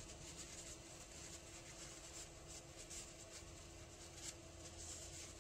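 Near silence: a steady faint hum with light rustling and small handling ticks as parts are picked up.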